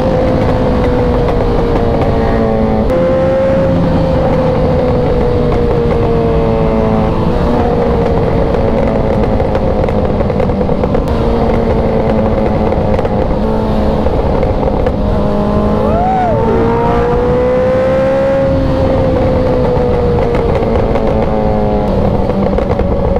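Vehicle engines on the move: a steady engine drone that drifts slowly in pitch, with superbike engines revving up and down alongside a few times.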